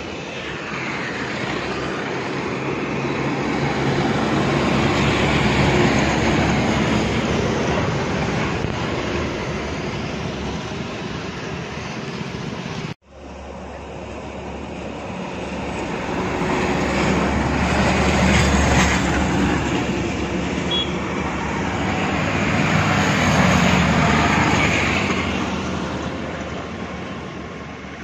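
Heavy lorries and a bus driving past: engine drone and tyre noise swell and fade three times as each passes. The sound cuts out for a moment about halfway through.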